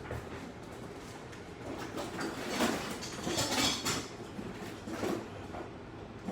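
Small hand tools and phone parts being handled during a repair, with light clicks and a louder stretch of scraping and rattling from about two and a half to four seconds in.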